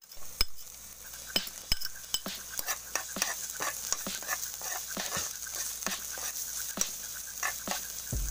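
A utensil stirring diced onion and tomato in hot oil in a frying pan, with irregular clicks and scrapes against the pan over a steady sizzle.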